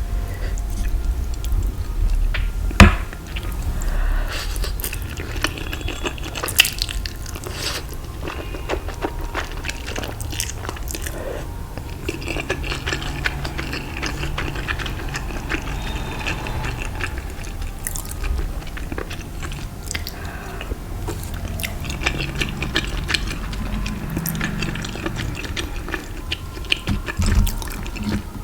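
Close-miked eating: steady chewing with wet mouth sounds and many small crackles, from spicy instant noodles, veggie fingers and fries. One sharp, loud click comes about three seconds in.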